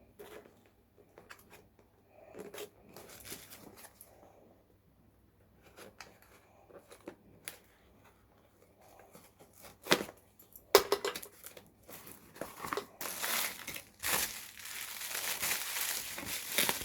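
Parcel packaging being unwrapped by hand: scattered rustles and light clicks, two sharp knocks about ten seconds in, then a few seconds of steady loud crinkling and tearing near the end.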